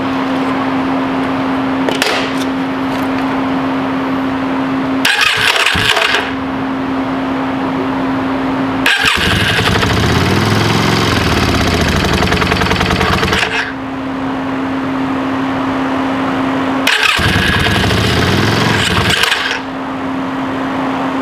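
Yamaha Virago 535 V-twin turned over on its electric starter in three bursts: a short one, a longer one of about four seconds whose pitch rises and then falls, and a third of about two seconds. Each burst has a whirring, metallic sound that the owner cannot place, suspecting the starter clutch or the Bendix starter drive. A steady hum fills the gaps between attempts.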